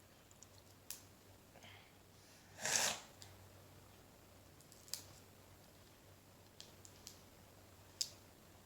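Peanut shells cracking: scattered sharp clicks, with one louder crunch a little under three seconds in.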